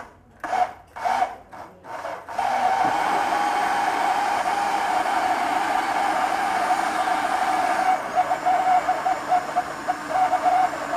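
Countertop electric blender blending thick sweet potato pudding batter: a few short bursts, then a steady motor hum that grows a little more uneven in the last few seconds.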